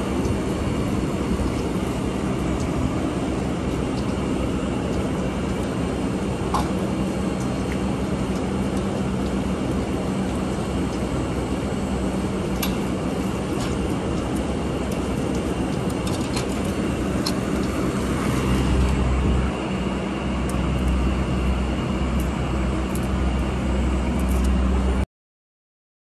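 Steady machine hum and whir, typical of rooftop air-conditioning condenser units running, with a few small clicks. A deeper low rumble joins in for the last few seconds.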